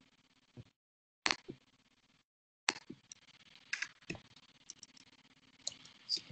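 Faint, sparse keystrokes on a computer keyboard: single clicks spaced irregularly, from a fraction of a second to about a second apart. The faint background cuts out to dead silence twice, about a second in and again about two seconds in.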